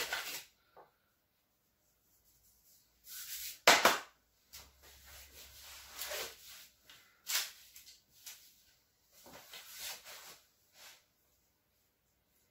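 Hands working at a table over proofed bread dough: a paper flour bag rustling, a sharp knock about four seconds in, then soft brushing as flour is rubbed over a loaf and light scrapes and clicks as a knife scores the crust.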